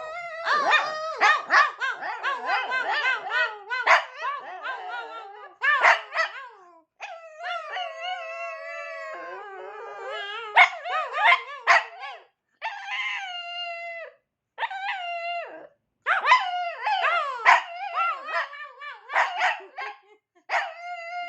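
Small dog, a Shih Tzu, barking and howling in long drawn-out calls mixed with short choppy barks, trading back and forth with a person imitating its barks and howls.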